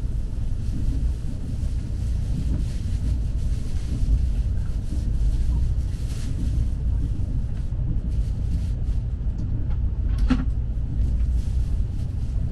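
Steady low rumble of a KTX-EUM high-speed train running, heard from inside the passenger cabin, with one brief sharp sound about ten seconds in.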